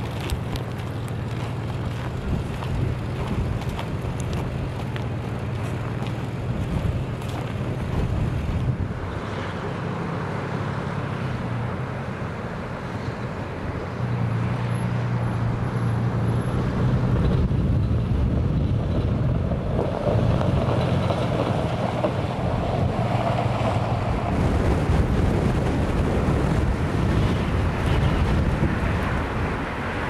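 Snowstorm wind buffeting the microphone, with a vehicle engine humming steadily underneath; the wind noise grows louder about halfway through.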